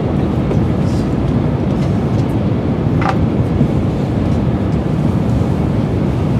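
Steady rumble of an N700 series Shinkansen running, heard inside the passenger cabin, with a brief faint click about three seconds in.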